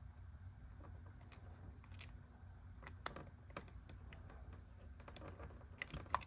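Faint, scattered small clicks and taps of hands and tools handling an open Sony Video 8 camcorder during video head cleaning, over a low steady hum.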